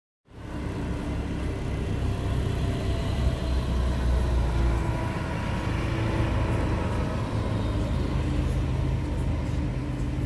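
Road tourist train, its engine-driven tractor pulling a line of open carriages past along the street, running steadily with a low rumble and street-traffic noise.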